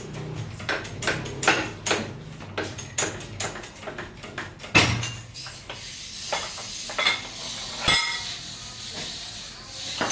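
Hand tools and metal engine parts clinking and knocking, an irregular run of sharp taps and clanks, some with a brief metallic ring. A heavier knock comes about five seconds in.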